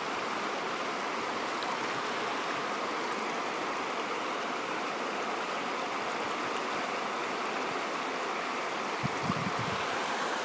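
Floodwater pouring steadily over an overtopped earthen levee, an even rush of moving water, with a few brief low bumps about nine seconds in.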